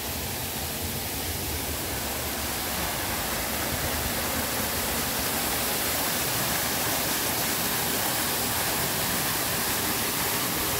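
Several artificial rock-face waterfalls pouring into a shallow pool: a steady rush of falling water that grows louder a few seconds in.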